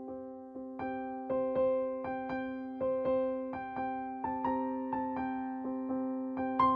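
Background piano music: a calm tune of evenly paced notes over a steady held low note.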